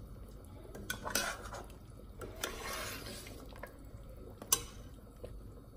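A metal spoon stirring a thin curry in a stainless steel pressure cooker pot: liquid swishing, with a few clinks of the spoon against the pot, the sharpest about four and a half seconds in.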